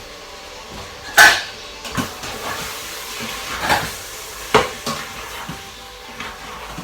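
Kitchen utensils and dishes clattering as they are handled: a sharp clatter about a second in, then several lighter knocks and clinks.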